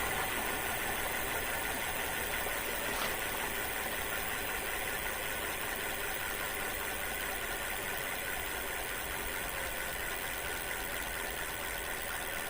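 Rear wheel and hub motor of a Duotts S26 electric fat bike spinning off the ground, a steady mechanical whir that slowly fades.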